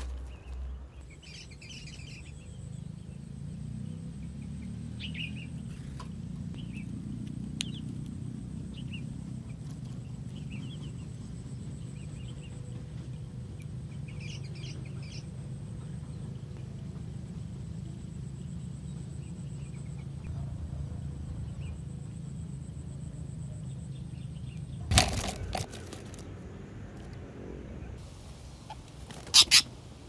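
Small birds chirping in short scattered bursts over a low steady rumble. Near the end come a few loud knocks and rattles from the plastic basket-and-bucket bird trap being handled.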